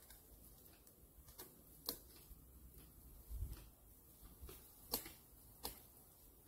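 Faint, sharp clicks of a Tirfor hand-operated cable winch being levered to tension the cable on a fallen branch, about six of them at uneven spacing, with a soft low thump about halfway through.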